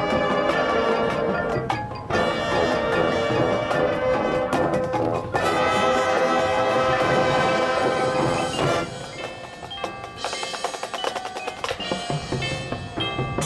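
Marching band playing: held brass chords, then a quieter passage about nine seconds in of struck mallet-percussion notes and drums.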